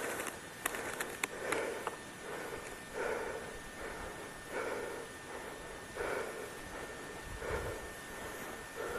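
A person breathing hard and evenly, one breath about every second and a half, with a few sharp clicks in the first second and a half.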